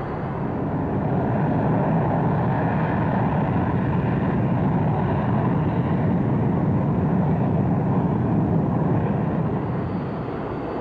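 Jet noise from a formation of BAE Hawk T1 jet trainers taking off together, their Adour turbofan engines at full power. The noise swells about a second in, holds loud and steady, and eases a little near the end as the jets climb away.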